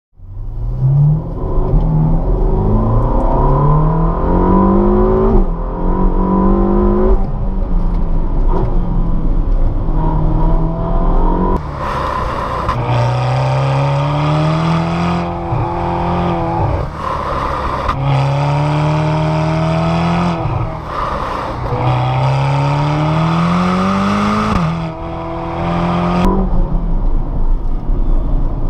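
Ferrari California T Handling Speciale's twin-turbo V8 accelerating hard, its note rising again and again and dropping at each upshift. It is heard partly from beside the exhaust tailpipes and partly from inside the cabin.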